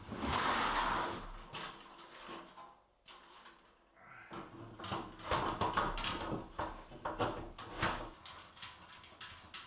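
Sheet-steel stand panels handled and shifted on a wooden floor: a scraping slide at the start, then a run of knocks and clanks from about four and a half seconds in as the loosely bolted frame is lifted and set down.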